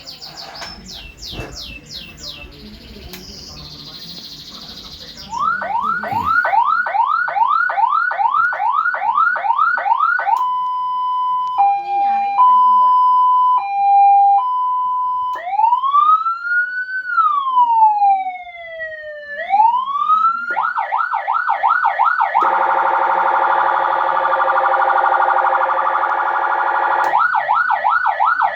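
Senken electronic siren cycling through its tones. It opens with a few quick high chirps, then about five seconds in plays a fast yelp of rising sweeps about three a second, a two-tone hi-lo alternation, a slow wail that rises and falls, more yelp, a harsh buzzing horn tone, and yelp again at the end.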